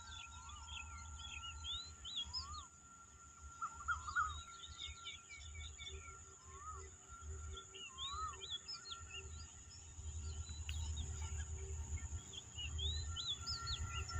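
Small birds chirping in short, repeated rising-and-falling calls over wind rumbling on the microphone, with a steady high-pitched whine in the background. The low rumble grows louder after about ten seconds.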